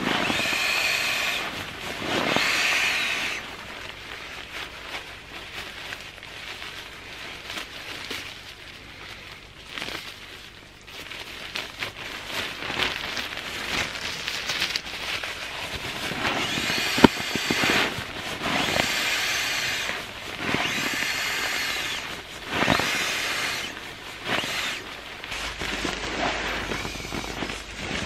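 Air sleeping pad being inflated with a pump sack: repeated rushes of air forced through the valve, each a second or two long, with fabric rustling in between and one sharp click about 17 seconds in.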